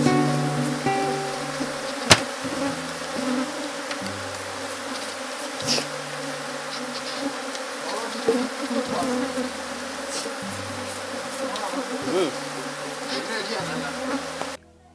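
Honeybees buzzing in a steady dense hum over the open frames of a hive, with one sharp click about two seconds in. The buzzing cuts off just before the end.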